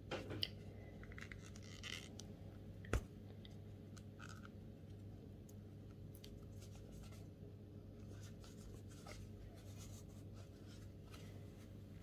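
Faint rustling and scraping of a metal crochet hook pulling thick T-shirt yarn through stitches, with a single sharp click about three seconds in. A low steady hum sits underneath.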